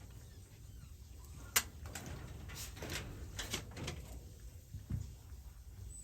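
A sharp click, then a few scrapes and knocks, and a dull thump near the end.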